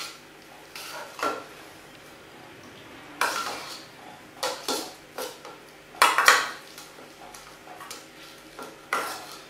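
Metal spoon stirring and scraping in a stainless steel bowl, mixing Leberkäse strips with mayonnaise: scattered clinks and scrapes, the loudest about six seconds in.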